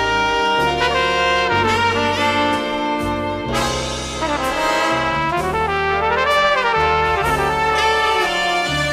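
Flugelhorn playing a slow jazz ballad melody in held, slurred notes over big-band accompaniment with a bass line moving underneath.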